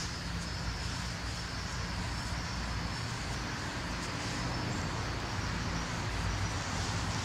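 Steady outdoor background noise with a low rumble of distant road traffic.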